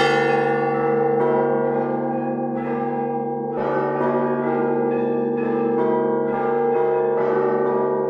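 Church bells ringing: several bells struck in turn, about once a second, each note ringing on over a steady low hum.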